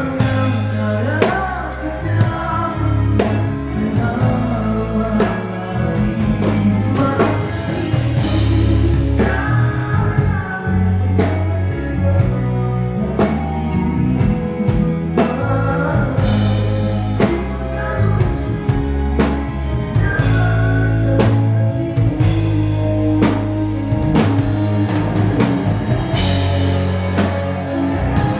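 Live rock band playing during a sound check: drum kit keeping a steady beat under electric guitar and bass while a singer sings the melody.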